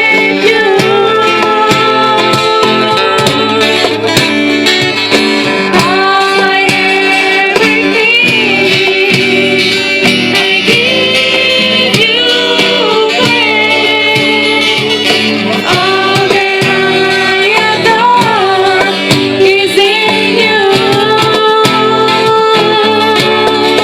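Music: the opening of a worship song, with guitar and a gliding sung melody line, starting abruptly.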